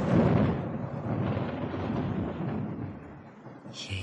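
Rumble of thunder, loud at first and dying away over about three seconds.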